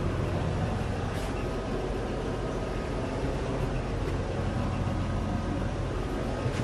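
1989 Dodge D100 pickup's engine idling with a steady low hum, heard from inside the cab.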